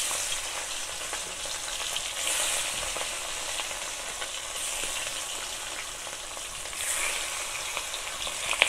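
Turmeric-and-salt-rubbed pieces of khoira hilsa fish sizzling in hot mustard oil in a wok. The steady hiss swells briefly about three times as more pieces are slipped into the oil.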